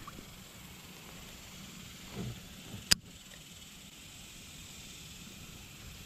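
Faint, steady outdoor background hiss, with a soft thud about two seconds in and a single sharp click about a second later.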